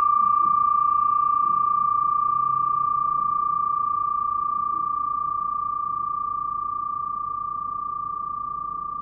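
Flat metal bell (bilo) with a yin-yang design on a wooden base, ringing on after a strike. It holds one clear, steady high tone with two fainter overtones above it, slowly fading away.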